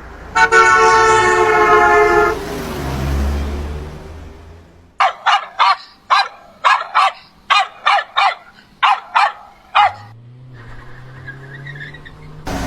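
A horn sounds one steady note for about two seconds. Then a dog barks a dozen or so times in quick succession, and a low hum slowly rises near the end.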